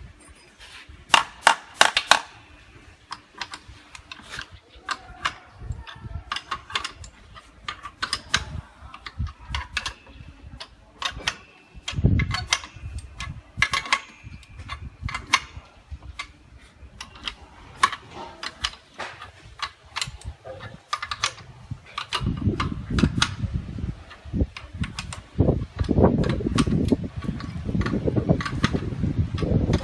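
Sharp metallic clicks and clinks of a spanner and the steel clamp parts of a manual butt fusion welding machine as its clamp nuts are worked around a plastic pipe, coming irregularly in small clusters. A low rumbling noise joins in about two-thirds of the way through.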